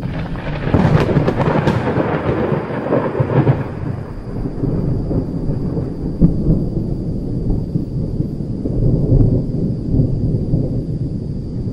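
Loud, continuous rumbling noise, like thunder with rain, with a faint steady high whine over it; it starts suddenly and cuts off suddenly.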